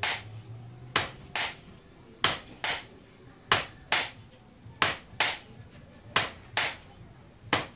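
Two hand hammers striking red-hot leaf-spring steel on an anvil in alternation, a pair of sharp blows about every second and a quarter. This is two-man hand forging of a blade.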